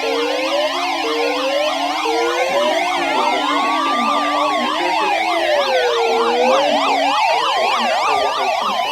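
Several electronic sirens sounding together: a slow wail rising and falling about every four seconds over many fast yelping warbles, with lower steady tones that stop about seven seconds in.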